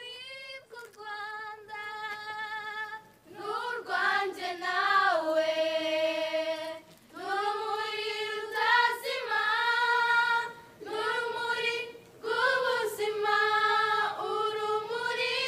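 Women's voices singing unaccompanied, in long held phrases with short breaks between them; the singing starts softly and grows louder about three and a half seconds in.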